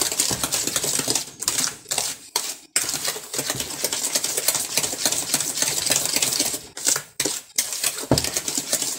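Spoon beating butter, sugar and eggs in a plastic bowl by hand for cake batter: a rapid run of clicks and scrapes against the bowl, with brief pauses about two and a half seconds in and again around seven to eight seconds in.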